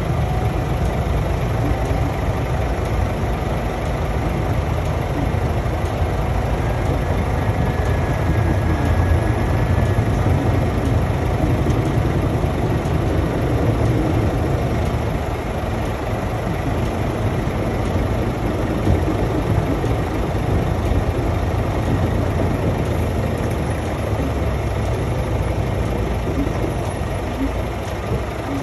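Heavy diesel tipper truck engine idling close by, a steady low rumble.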